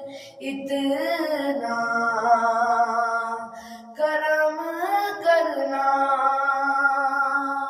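Naat singing: a solo voice holds long, wavering, ornamented notes in two phrases, with a short break about halfway through.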